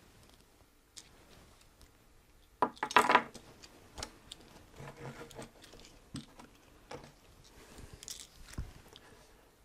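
Faint scattered clicks and rattles of small hard objects being handled, loudest in a short cluster about three seconds in.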